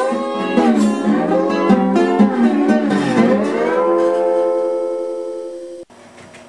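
Short guitar music cue with a melody that bends in pitch, ending on a held note that fades and then cuts off suddenly near the end.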